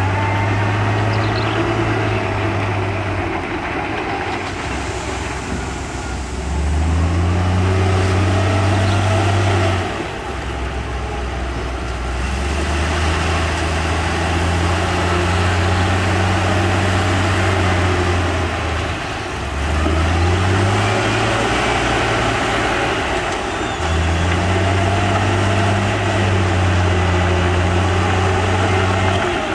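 Heavy diesel engine of an earthmoving machine running hard, its revs stepping up and down every few seconds as it works under load.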